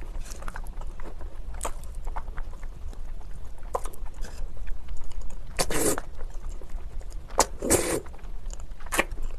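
Close-up eating sounds of a person slurping and chewing spicy noodles, played back at double speed. There are wet mouth clicks and short sucks, with two longer, louder slurps a little past halfway.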